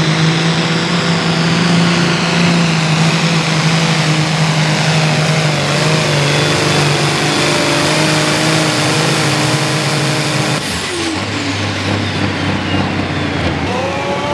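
Light pro stock pulling tractor's 466 cubic inch diesel engine running flat out at a high, steady pitch under the load of a pulling sled. About ten seconds in, the throttle is cut: the engine note drops sharply to a lower idle and a high whine falls away.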